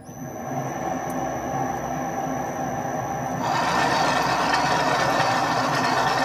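Metal lathe running up to speed and spinning a four-jaw chuck while a threading bar cuts an internal 4 TPI Acme thread in the nut, with a steady high whine over the machine noise. The cutting noise grows louder and harsher about three and a half seconds in as the tool takes its cut.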